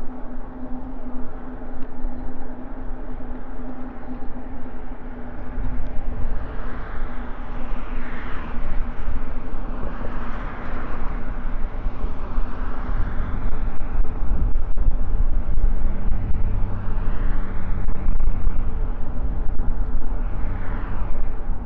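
Riding an e-bike along a road: a steady rumble of wind on the microphone and tyre noise, with several vehicles passing by one after another, each swelling and fading.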